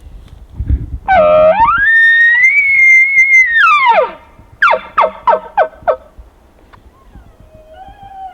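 Bull elk bugling: a low note slides up into a high whistle held for about two seconds, drops away, and ends in about six quick chuckles. A second, fainter bugle answers near the end.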